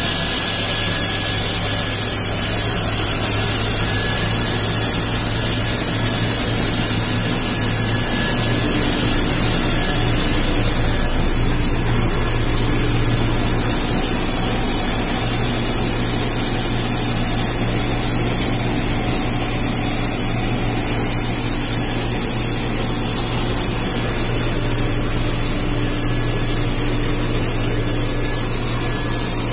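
SMF600 PVC pulverizer running steadily: a constant loud machine whir with a low hum under a high hiss.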